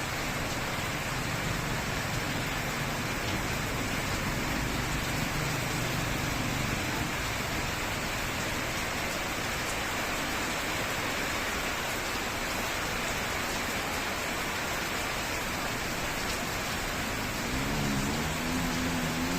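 Steady rain falling, an even hiss of rain on surfaces. A low droning hum, like an engine, comes in near the end.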